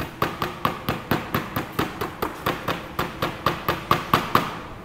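Rubber mallet tapping rapidly over a laminate sheet glued onto a PVC wood-plastic board, about four to five even blows a second. It presses the laminate down to push trapped air out of the spray-adhesive bond. The tapping stops near the end.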